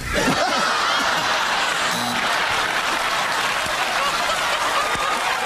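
Studio audience laughing and applauding. The applause starts suddenly and then holds steady.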